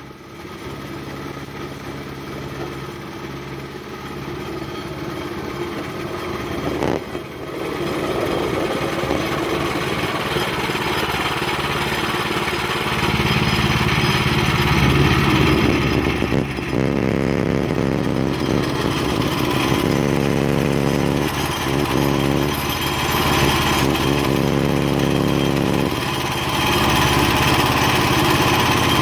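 Woodland Mills HM126 portable bandsaw mill cutting a poplar log: its gas engine runs steadily under load while the band blade saws through the wood. The sound grows steadily louder over the first half as the sawhead approaches.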